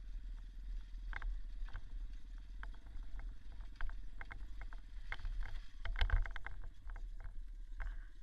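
Dirt bike engine running low and steady, with frequent sharp clicks and knocks of rattling over rough ground.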